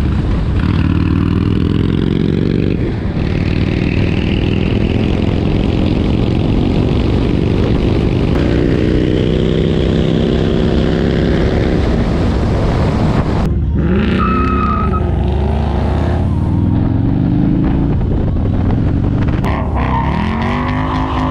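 Harley-Davidson touring motorcycle's V-twin engine running at road speed with wind noise. Its pitch rises under acceleration, then drops at a gear change about three seconds in. Near the end a Ford Mustang GT's V8 revs up and down during a burnout.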